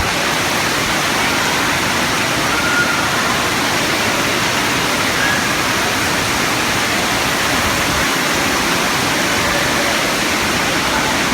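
Heavy rain coming down hard in a steady, loud rush of water.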